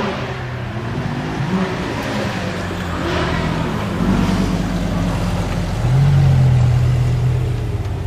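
High-performance car engine revving: several short rev blips whose pitch rises and falls, then a steadier, louder held engine note from about six seconds in.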